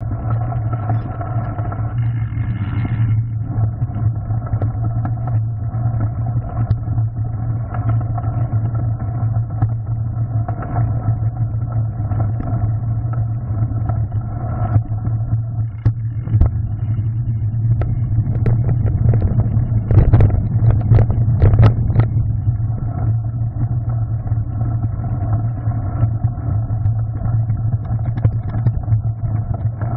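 Mountain bike ridden down a gravel and rock forest trail: a steady rumbling drone of tyre and frame vibration, with a run of sharp knocks and rattles over rough ground about two-thirds of the way through.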